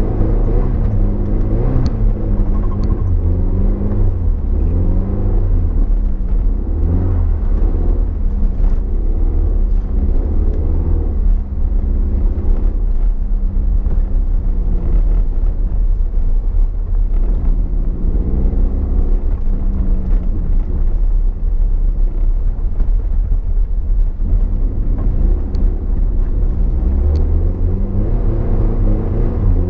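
Toyota MR2's engine, heard from inside the cabin while being driven hard, its pitch rising and falling again and again with throttle and gear changes, over a heavy, steady low rumble.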